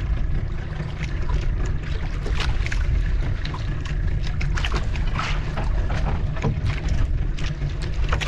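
Wind buffeting the microphone on a small fishing boat at sea, a steady low rumble, with irregular short knocks and splashes throughout.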